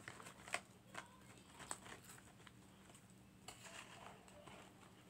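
Faint, scattered clicks and crinkles from chewing food and from fingers picking through a cardboard Chicken McNuggets box.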